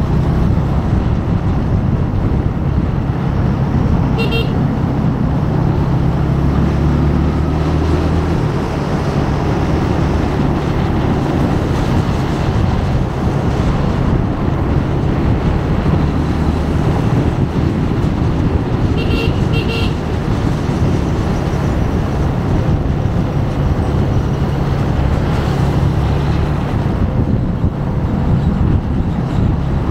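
Motorcycle engine running steadily under way, with wind and road noise. A vehicle horn gives a short toot about four seconds in and two quick toots about two-thirds of the way through.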